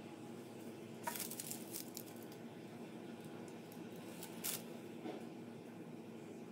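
Wooden skewer drawn through thick cake batter in a metal springform pan, soft squishing strokes with a few light clicks and scrapes about a second in and one sharper tap near the middle, over a steady faint hum.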